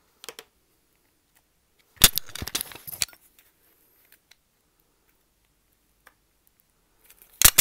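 Clicks and rustling from gloved hands working a small red-handled cutting tool on an electrical cable. A loud rattle of clicks starts about two seconds in and lasts about a second, and another sharp cluster of clicks comes near the end.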